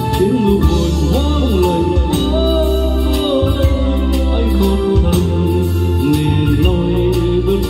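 Karaoke music with heavy, steady bass and a gliding melody line, played loud through a CM Audio CM-18C trolley speaker with a 50 cm bass driver.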